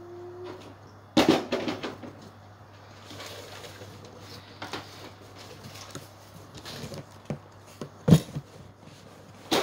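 Handling noise from a phone close to the microphone and things on the table: a loud rustling clatter about a second in, soft scrapes and clicks after it, and a sharp knock near the end, over a low steady hum.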